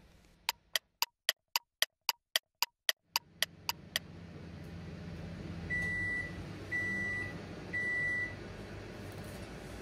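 A quick run of about fourteen ticks, about four a second, then a steady low hum and three beeps from a Toshiba oven range, each about half a second long and a second apart, signalling that the bake has finished.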